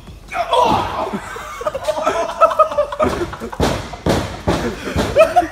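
Men laughing and a voice yelling without clear words, with a few sharp thumps about midway and near the end as a body flops onto the wrestling ring mat.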